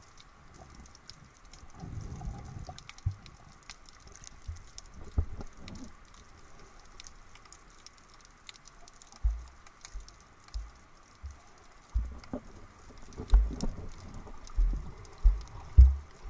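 Underwater sound picked up by a camera held below the surface while snorkeling: muffled water noise with many faint scattered clicks and crackles, and a run of low thumps that come more often in the second half.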